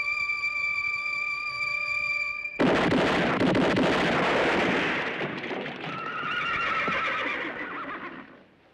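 A long held note of the film score, cut off about two and a half seconds in by a sudden loud burst of revolver gunfire. Horses whinny and neigh in alarm over the din, and it fades toward the end.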